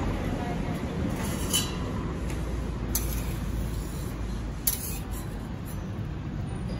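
Steady low background rumble of street noise, broken by a few light metal clinks as utensils are handled at a steel crepe griddle.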